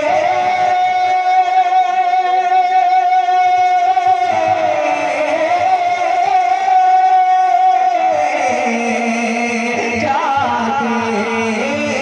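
A man singing a naat, holding one long high note for about eight seconds, then sliding down through wavering melodic turns.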